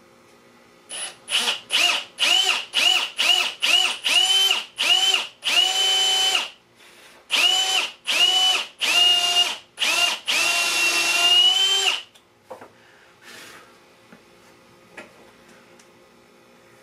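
Cordless drill driving screws into wood, run in a quick series of short trigger bursts, each with a whine that rises as the motor spins up. It stops after one longer run, leaving a few faint knocks.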